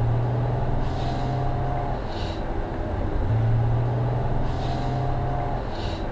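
Engine and road noise inside a moving minivan's cabin: a steady low hum over tyre rumble, dropping out for about a second midway and then returning.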